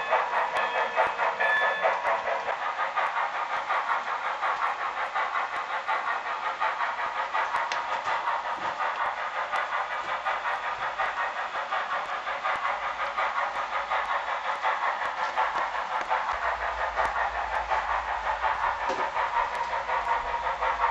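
HO scale Proto 2000 Canadian Pacific 0-8-0 steam switcher model's sound system playing rapid, steady steam-exhaust chuffing through its small speaker.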